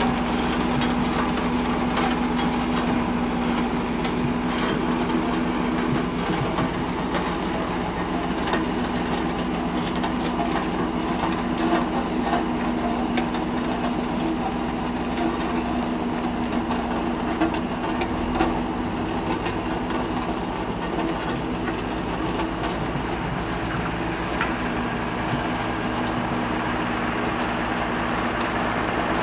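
Heavy machinery running steadily with a continuous hum and scattered clanks and knocks, from the steam road roller or the vehicle hauling it.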